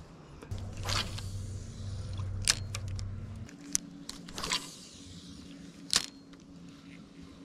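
Electric trolling motor humming steadily, its pitch stepping up about three and a half seconds in, with several sharp clicks and a couple of short swishes over it.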